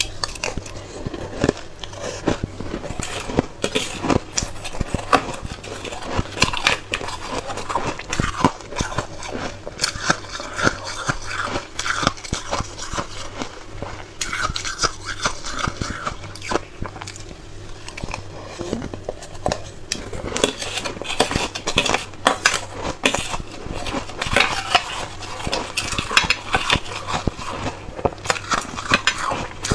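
Close-miked chewing and crunching of soft, moist crushed buckwheat ice, a dense run of wet crackles, with a metal spoon scraping and clinking against a stainless steel bowl.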